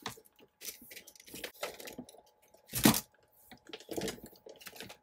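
Paper and small craft supplies being handled on a desk: scattered rustling and scraping, with one louder sharp crack about three seconds in.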